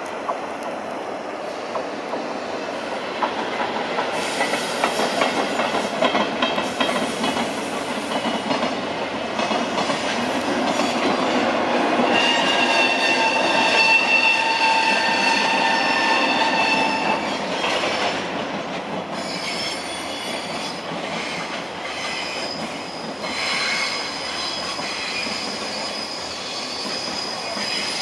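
JR container freight train rolling past. Its wheels squeal in several steady high tones from about twelve seconds in, loudest then, and a fainter squealing tone returns in the second half.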